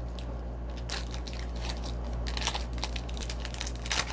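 Foil wrapper of a hockey card pack crinkling and tearing as it is opened: irregular crackles and rustles, loudest near the end.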